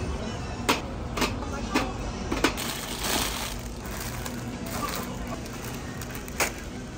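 Tin cans clacking against a metal store shelf, four sharp knocks in the first two and a half seconds, then a brief crinkle of plastic-wrapped biscuit packs being handled and one more click near the end, over a low steady supermarket hum.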